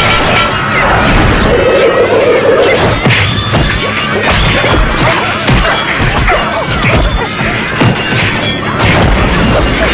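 Fight-scene soundtrack: a dense run of whacks and crashing hits, some with short high ringing tones, over music.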